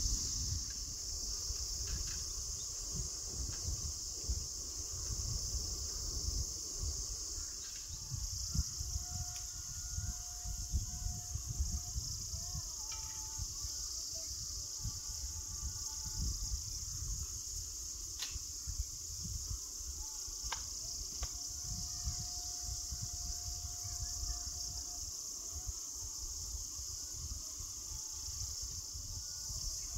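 Steady high-pitched chorus of forest insects, with a low rumble on the microphone and a few faint clicks.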